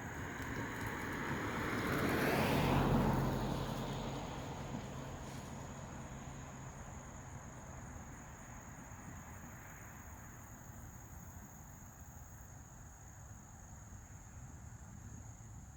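A vehicle passing by, swelling to its loudest about three seconds in and then slowly fading away, over a thin steady high-pitched tone.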